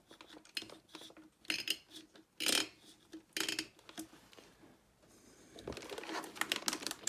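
Screwdriver driving a CPU cooler's mounting screws into the motherboard: a scatter of short metallic scrapes and clicks, several over a few seconds, with a longer rasping stretch near the end.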